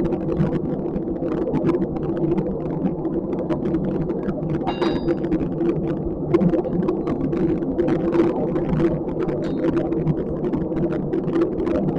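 Steady mechanical hum with constant fine crackling over it, and one short metallic ring about five seconds in.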